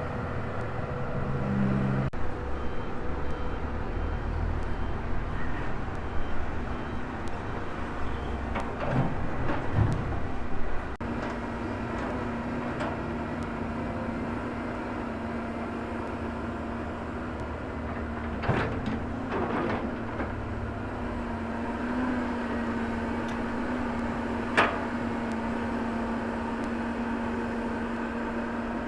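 A Volvo excavator working, its diesel engine and hydraulics running steadily. A steady hum sets in about a third of the way through, and a few sharp clanks come in the middle and once more about two-thirds in.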